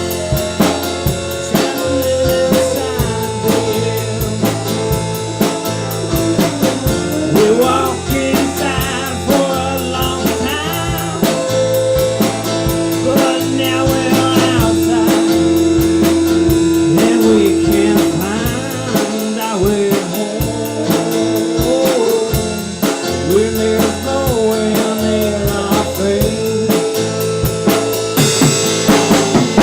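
A band playing a blues-rock song with guitar, bass and drums, with bending melodic notes and one long held note near the middle.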